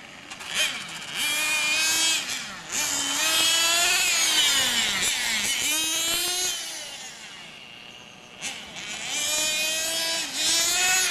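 RC motorcycle's small engine revving hard, its high buzzing pitch climbing as it accelerates and falling as it slows for corners, over and over. It drops away briefly about two-thirds through, then picks up again.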